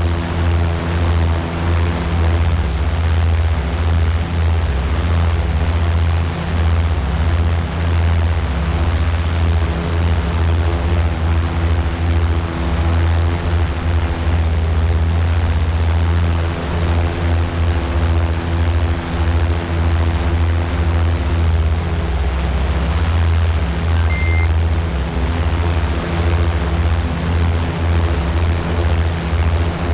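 Multirotor drone's motors and propellers humming steadily at close range, a low buzz with several steady tones above it that never lets up.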